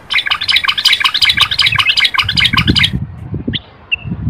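Common bulbul singing: a rapid, dense chatter of chirping notes for about three seconds that cuts off sharply, then two short single notes, the first falling in pitch.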